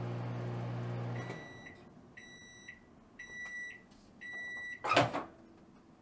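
Countertop microwave oven running with a steady hum that cuts off about a second in as its timer reaches zero. It then gives four end-of-cycle beeps about a second apart, and near the end there is a loud click as the door latch is popped open.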